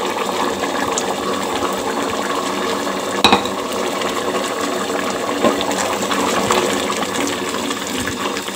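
Thick chickpea curry gravy bubbling at a hard boil in an aluminium pot, a steady spluttering hiss over a low hum, with a sharp pop about three seconds in.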